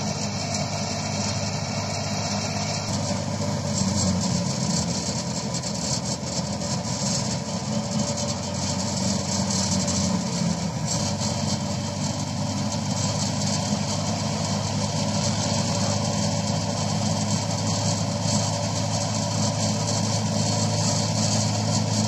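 Wheat thresher running steadily as sheaves are fed in, a continuous engine-and-machine drone.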